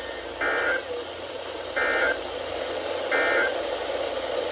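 Three short bursts of NOAA Weather Radio EAS/SAME digital data tones, each about half a second long and about 1.4 s apart, over a steady radio hiss. Bursts this short are the End of Message code that closes the alert.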